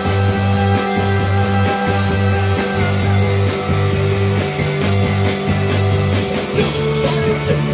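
Rock band playing live: electric guitar and a Pearl drum kit over held low bass notes that change about once a second.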